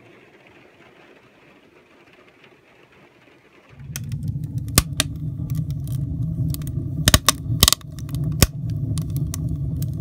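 Faint rain hissing, then from about four seconds in a wood fire burning in a stove, crackling with sharp pops over a steady low rumble.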